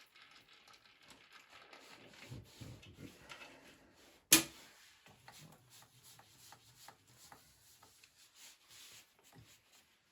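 Faint handling noises of metal lathe parts and tools as a milling slide is set up and trammed against the chuck jaws: small clicks and rubs, with one sharp metallic knock a little over four seconds in.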